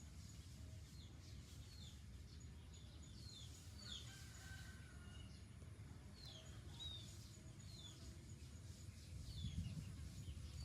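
Faint bird chirping: short falling chirps, repeated every second or so, over a low steady outdoor rumble.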